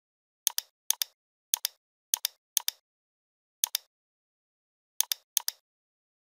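Computer mouse button clicking eight times at irregular intervals, each click a sharp press-and-release double tick.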